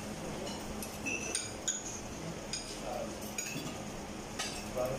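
Metal spoons and forks clinking and scraping against plates as several people eat, a scattered string of short sharp clinks, the loudest one near the end.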